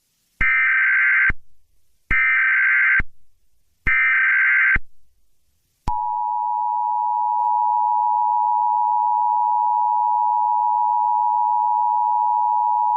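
Emergency Alert System alert tones: three short, evenly spaced bursts of SAME header data, a buzzy digital warble, then about six seconds in the steady two-tone EAS attention signal, which holds unbroken.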